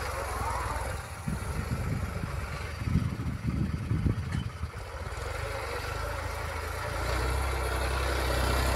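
Diesel farm tractor engine running steadily under load as it pulls a cultivator through stubble, growing louder near the end as the tractor comes toward the microphone.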